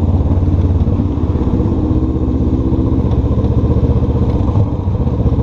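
Honda CB500F's parallel-twin engine running steadily under way from the rider's seat, with a brief dip in loudness about four and a half seconds in.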